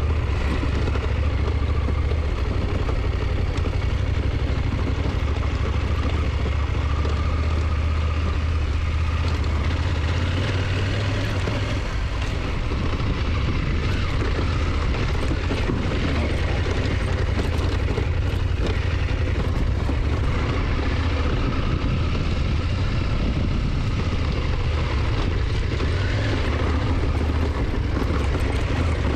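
Motorcycle engine running at a steady cruise with heavy wind rush on the microphone while riding. The drone is steady, with a slight dip about twelve seconds in.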